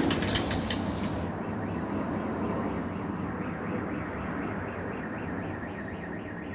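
Su-35 fighter jet's engine noise, a broad rumble fading steadily as the jet flies off. About three seconds in, a car alarm starts a rapid warbling wail.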